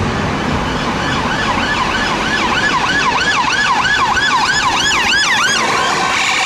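Police siren wailing in quick, evenly repeated rising-and-falling sweeps, about two to three a second, starting about a second and a half in and fading near the end, over a steady hiss.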